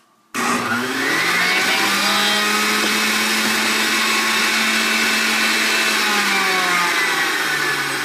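Hamilton Beach centrifugal juicer switched on about a third of a second in, its motor spinning up quickly and then running with a steady whine. Its pitch sags somewhat near the end.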